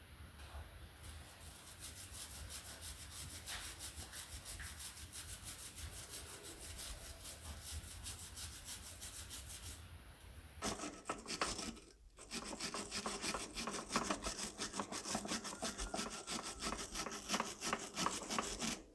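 A brush scrubbing rust and corrosion off a tractor battery cable terminal in fast back-and-forth strokes. The scrubbing gets harder and louder a little past halfway, with a brief pause shortly after.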